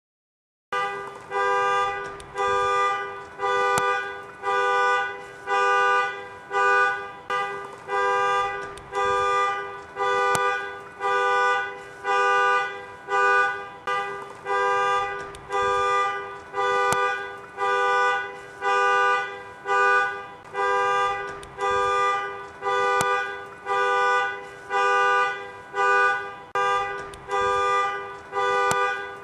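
Car alarm sounding through the car's horn: a loud two-note honk repeated evenly about once a second, starting about a second in.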